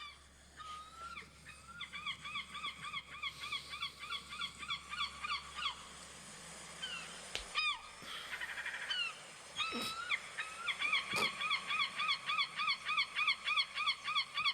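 Seagulls calling in rapid runs of short yelping notes. The calls thin out around the middle and come back faster and louder near the end.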